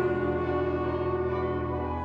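A school wind band playing a sustained chord, led by brass with French horns prominent, and a low bass note held underneath.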